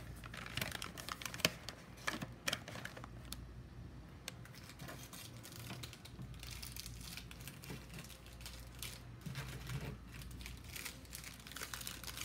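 Plastic snack-food wrappers crinkling and rustling as packets are picked up and moved around, in irregular crackles that are busiest in the first few seconds and again near the end.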